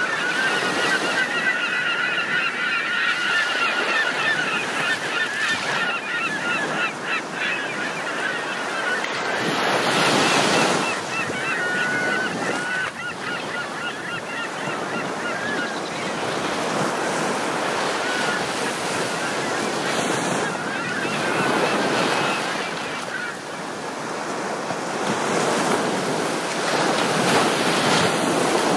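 Ocean surf washing in slow swells, with a flock of birds calling in quick, overlapping honks over it that thin out after about fifteen seconds.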